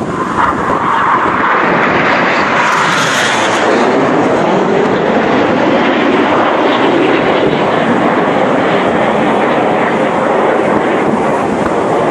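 BAE Hawk T1 jets of an aerobatic formation flying past. Their loud engine rush builds within the first second and then falls in pitch as they pass and draw away.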